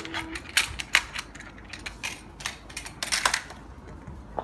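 Plastic toy race track and die-cast toy cars being handled: irregular sharp clicks and clattering taps, with a quick rattle of several clicks about three seconds in.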